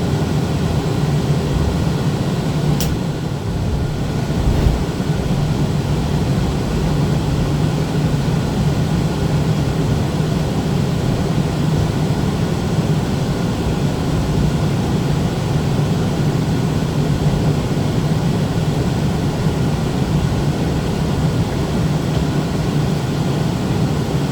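Inside a moving Newark AirTrain monorail car: the steady low hum and rumble of the train running, with a sharp click about three seconds in and a soft knock a couple of seconds later.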